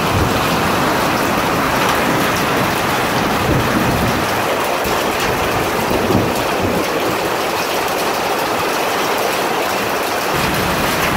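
Heavy thunderstorm rain and wind, the rain drumming steadily on a metal carport roof.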